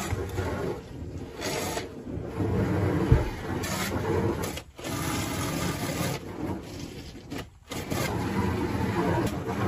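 Hose spray pattering on a car windshield and a wash mitt scrubbing and rubbing across the glass, heard from inside the car, with short pauses and a brief low thump about three seconds in.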